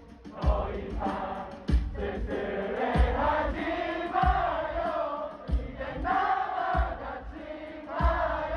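Live pop concert music over a large sound system, with sung vocals and a crowd singing along, and a heavy kick drum hitting about once every 1.3 seconds.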